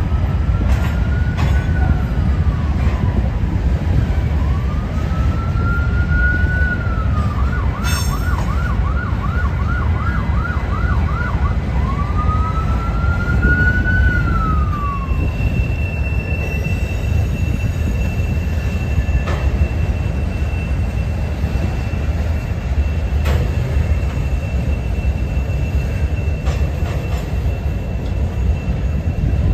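Freight train of covered hopper cars rolling steadily over a steel overpass, a constant low rumble. Over it, an emergency vehicle siren wails, switches to a fast yelp for a few seconds, then wails once more and stops about halfway through. A thin steady squeal, likely from the wheels, joins about halfway.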